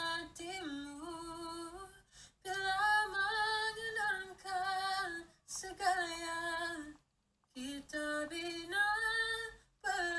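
A teenage boy singing solo in a high, female-sounding voice, imitating a female pop singer. He sings short phrases of held notes with brief pauses between them.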